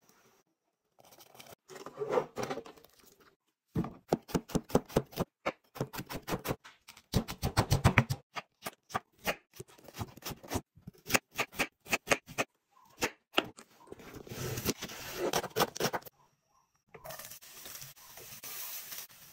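A kitchen knife chopping vegetables on a wooden cutting board in quick, even strokes, then sliced onions and curry leaves sizzling in oil in a frying pan near the end.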